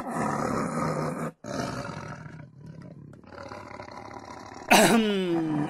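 Lion roar sound effect, twice: a short roar, then a longer one that trails off. Near the end a pitched, wavering voice-like sound begins.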